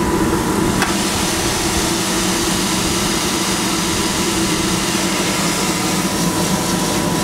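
Probat drum coffee roaster running during bean cooling: a steady blower noise with a low hum as the cooling tray draws air through the freshly roasted beans and the stirring arm turns them. The hiss grows brighter about a second in.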